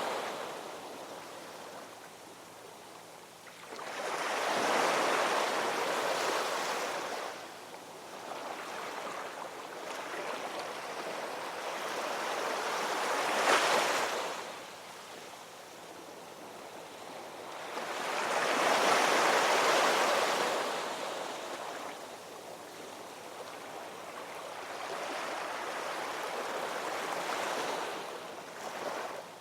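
Ocean surf: waves breaking and washing in, the roar swelling and ebbing in slow surges every six to eight seconds, with one sharper crash about halfway through.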